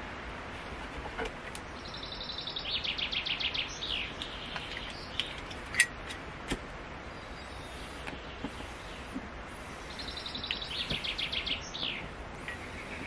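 A songbird singing twice, each song a quick run of repeated high notes ending in a short flourish, over a steady outdoor hiss. A sharp click stands out about halfway through.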